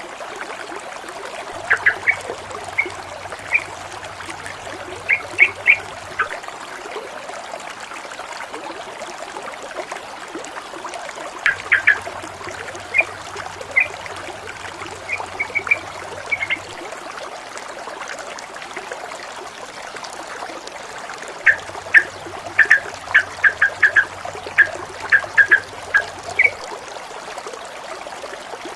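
Water trickling and splashing steadily, with three bursts of short, high chirps from a bird about ten seconds apart.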